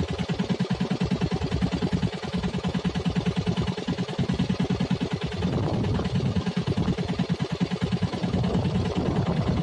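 Fishing boat's engine running at idle, a steady rapid low pulsing that thickens slightly about halfway through.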